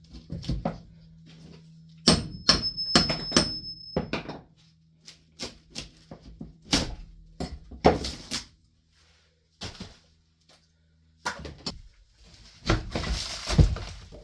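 Irregular knocks and thuds of hand demolition and repair work on a damaged wooden subfloor. A few sharp strikes about two seconds in leave a brief metallic ring, and a cluster of heavier thuds comes near the end. A low hum underneath stops about eleven seconds in.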